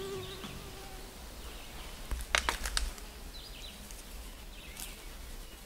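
Forest ambience with a fly buzzing past at the start, fading out within the first second. A few sharp clicks come quickly together about two and a half seconds in, and faint short bird chirps sound near the end.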